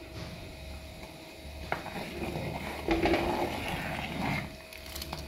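Quiet stirring of rasam in a clay pot with a wooden ladle: a single light click and soft, irregular scraping and knocking of wood against clay, over a faint steady hum.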